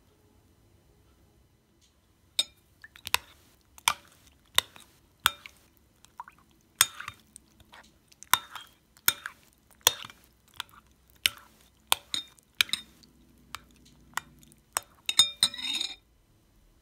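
Metal spoon clinking against the side of a glass bowl while stirring melon seeds in water, sharp separate clinks about one to two a second. Near the end comes a quick flurry of clinks with splashing, then it stops suddenly.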